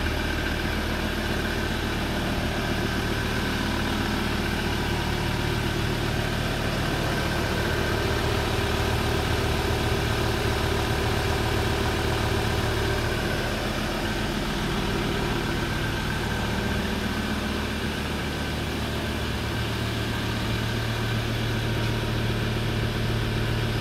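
Fire-brigade pickup's engine idling steadily, a low even hum that holds its pitch throughout.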